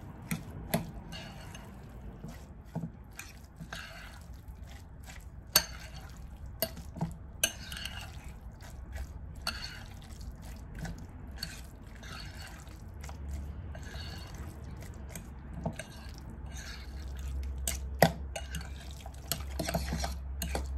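Egg salad being stirred and mashed with mayonnaise in a glass bowl: soft wet squelching, broken by irregular sharp clinks of the metal utensil against the glass.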